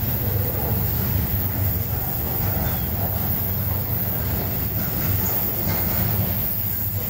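Cars of a CSX freight train rolling past on the rails: a steady low rumble of wheels and trucks on the track.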